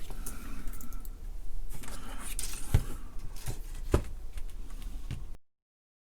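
Small clicks, taps and light rattles of a circuit board and its components being handled on a workbench, with a few sharper knocks. The sound stops abruptly about five seconds in.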